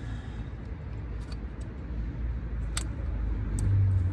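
A few light, sharp clicks and taps of a drill bit being swapped in a cordless drill's chuck, over a steady low rumble.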